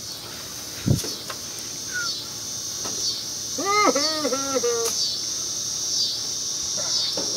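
A steady high insect chorus that swells and dips slightly under a second apart. About a second in there is a dull knock, and near the middle a short hum-like voice.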